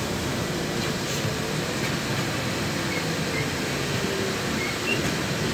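Cabin noise of a LiAZ 6213.21 articulated city bus under way: a steady hum of the diesel drivetrain mixed with road noise, with a few faint short squeaks from the bodywork.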